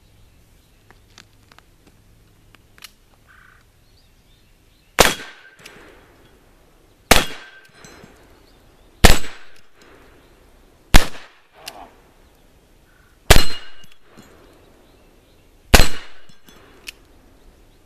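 Six shots from a Pietta black powder revolver, about two seconds apart, each a sharp report that dies away in a short echo.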